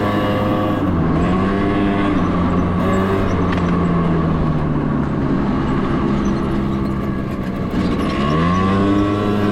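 Vehicle engine running, its pitch dropping about a second in, sinking slowly lower, then climbing again near the end as the revs change.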